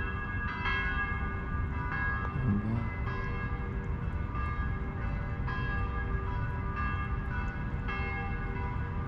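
Church bells ringing a peal: several bells struck in turn, about one strike a second, each ringing on, over a steady low rumble.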